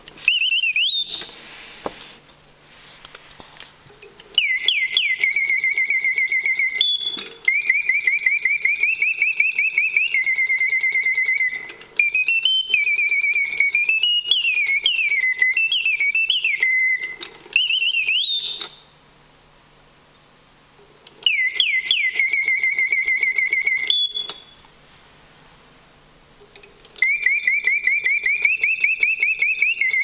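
Karl Griesbaum singing bird automaton whistling its mechanical birdsong, the bellows-driven piston whistle making the song. It sings in phrases of fast warbling trills that open with quick rising chirps and then slide up and down in pitch, with pauses of two to three seconds between phrases.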